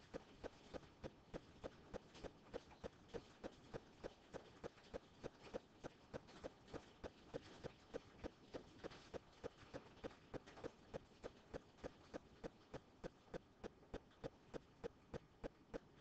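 Faint, steady ticking, evenly spaced at about three ticks a second.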